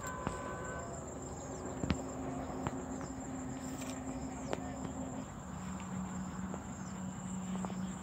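Insects keep up a steady high-pitched buzz, with scattered small clicks and a faint low hum that drops in pitch about five seconds in.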